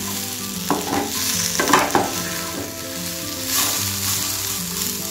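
Cubed potatoes sizzling in oil in a non-stick pan while a wooden spatula stirs them, with a few scrapes about a second in and around two seconds. The potatoes are cooked soft, simmered under a lid before this.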